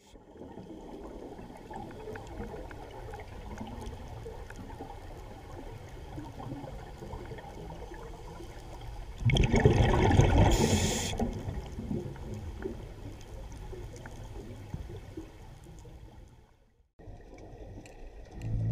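Water gurgling and bubbling, swelling into a loud rush about nine seconds in that fades over the next few seconds. It cuts out briefly near the end.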